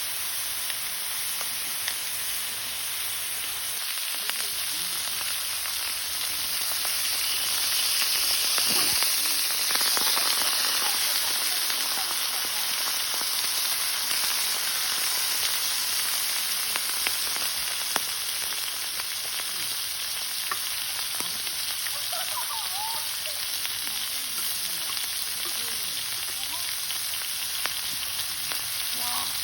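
Pork belly frying in its fat on a cast-iron cauldron lid over a wood fire: a steady sizzling hiss that swells a little about eight to eleven seconds in.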